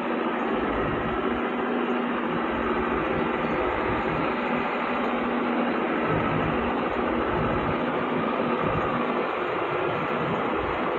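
Diesel engine of a TMT Cửu Long dump truck running steadily under load as the truck, loaded with acacia logs, crawls up a steep dirt track.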